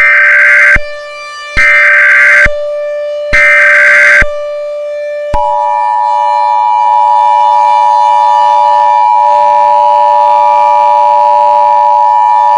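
Emergency Alert System broadcast tones: three short, harsh, buzzing data bursts of the digital header, about a second and a half apart. About five seconds in, the steady two-tone attention signal takes over and holds at one pitch.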